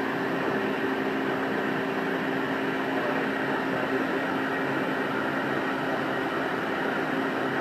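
Steady mechanical hum with a constant low drone, plausibly from the hydraulic pump of an Amada FCXBIII CNC brake press running at rest.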